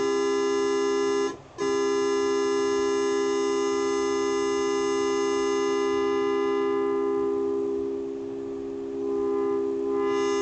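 Realistic MG-1 synthesizer's polyphony section sounding a held chord. The chord cuts out briefly about a second in and is struck again. Its bright upper overtones then fade away over a few seconds and come back near the end.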